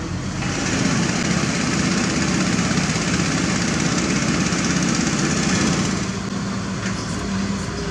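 Diesel engine of heavy construction machinery running under load. It grows louder about half a second in and eases back to a steadier hum about six seconds in.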